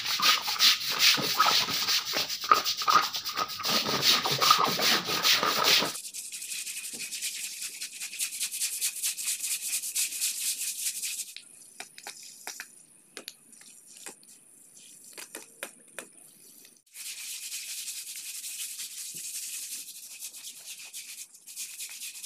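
Hand scrub brushes scraping over wet concrete in quick, rasping strokes. The strokes are loud and dense for the first six seconds, then fainter and more scattered.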